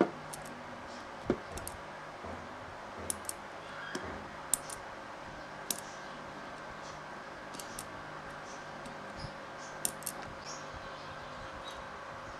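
Scattered small metallic clicks and taps from a screwdriver and small jet parts against the body of a disassembled Aisan carburetor, over a faint steady hiss. The clicks come irregularly, with the sharpest one right at the start.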